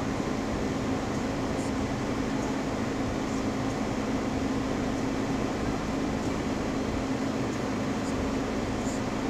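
Steady low hum inside a vehicle's cabin as it crawls slowly over sand and rock and comes to a stop, with no change in pitch.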